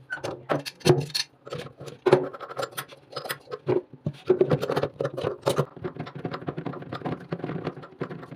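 Irregular metal clicks, taps and scrapes as a chrome basin bottle trap is gripped with a wrench and unscrewed by hand over a plastic bucket. The rattling grows quicker and denser about halfway through.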